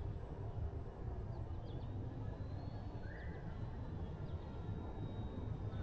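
Faint, steady high whine of the FMS Ranger 1220mm RC plane's electric motor flying high overhead, shifting slightly in pitch midway, over a steady low rumble. A few short high chirps are heard.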